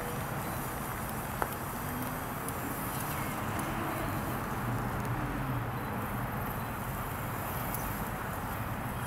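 Traxxas TRX-4 Sport RC crawler driving through wood-chip mulch, its tires crunching and scrabbling over the chips, with one sharp click about a second and a half in.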